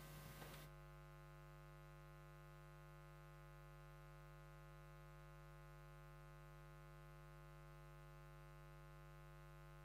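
Near silence: faint room tone that cuts out under a second in, leaving only a faint steady hum.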